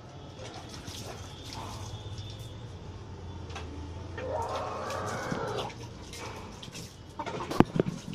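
A rooster clucking while pecking at hibiscus leaves, with scattered small clicks and a stretch of rustling about four to six seconds in. A cluster of sharp knocks near the end is the loudest sound.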